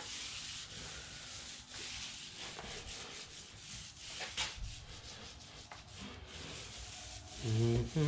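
Repeated rubbing and scrubbing strokes of a tool against a surface, a steady rasping hiss. A short hum of a man's voice comes in near the end.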